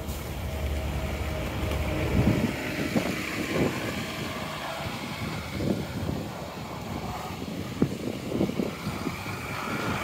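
Traffic on a snowy city street: a low engine rumble for the first two seconds or so, then a steady hiss of passing vehicles, with irregular footsteps in snow.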